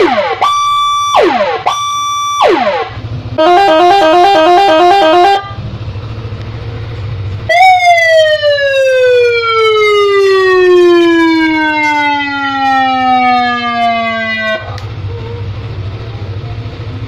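Electronic patwal (police-escort) siren on a Pulsar motorcycle, cycling through its tones. First come three short notes, each held and then dropping sharply. Next is about two seconds of rapid warbling, then one long note falling slowly in pitch for about seven seconds before cutting off.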